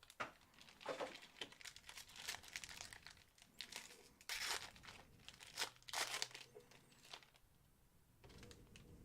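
Plastic wrapping crinkling and tearing in irregular bursts as a sealed trading-card box and pack are opened, loudest twice past the middle.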